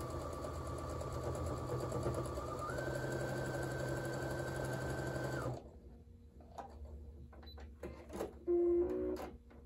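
Brother electric sewing machine stitching a seam, its motor whine stepping up in pitch about three seconds in as it speeds up, then stopping a little after five seconds. Light clicks and fabric handling follow, with a short beep near the end.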